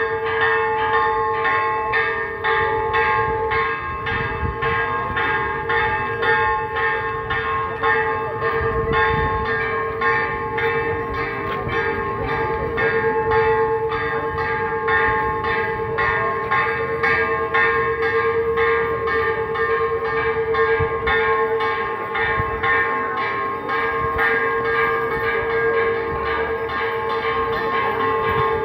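Church bells rung in rapid, even strokes, holding one steady pitch with overtones: festive ringing for a Corpus Christi procession. A crowd murmurs underneath.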